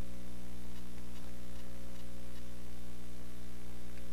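Steady electrical mains hum, a buzz with many overtones, from the recording's audio chain. A few faint clicks of laptop keys being tapped run through the first half and come again near the end.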